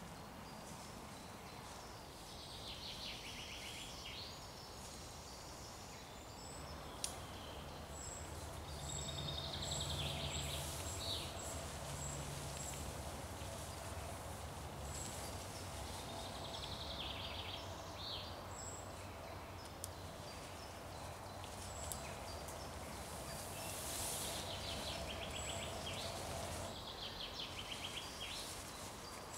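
Woodland birdsong: songbirds singing short trilled phrases every few seconds, with a thin high note repeated in quick series. A low steady hum sits underneath for most of the time.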